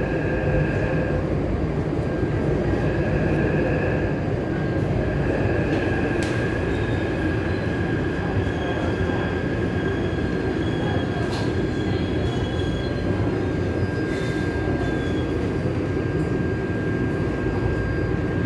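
Inside a Taipei Metro C371 steel-wheel metro car as it runs into a station platform: a steady rumble of wheels on rail, with a thin steady whine above it.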